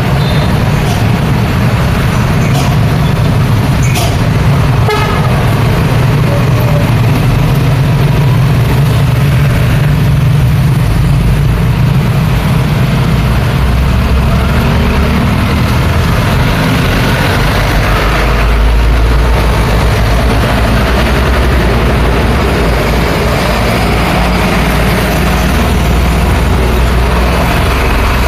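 Heavy road traffic passing close by, mostly trucks and buses, engines rumbling steadily and loudly. A vehicle horn toots briefly about four to five seconds in.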